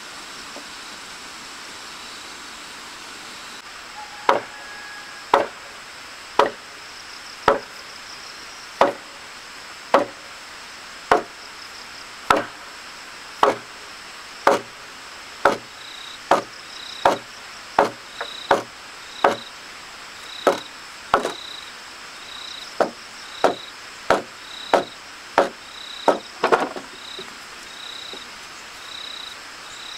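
Wooden mallet striking a timber beam of a log frame again and again, about two dozen blows. The blows come about once a second at first, then quicker in the second half, and stop a few seconds before the end. Insects buzz and chirp steadily in the background.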